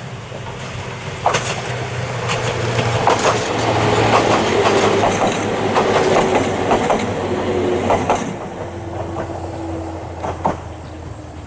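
Ohmi Railway electric train (set 105F) approaching and running past: its wheels click over the rail joints above a steady whine. It is loudest in the middle and fades after about eight seconds, with a last couple of clicks near the end.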